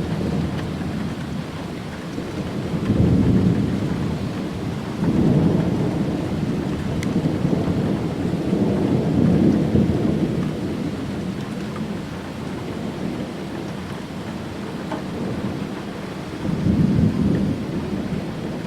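Thunderstorm: steady rain with thunder rumbling in three rolls, a short one about three seconds in, a long one lasting several seconds in the middle, and another near the end.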